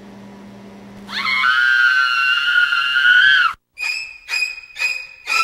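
A loud, high-pitched shriek rises in about a second in and is held for about two seconds before cutting off suddenly. Then come stabbing, screeching violin strokes, about two a second, in the style of a horror-film knife-attack music cue.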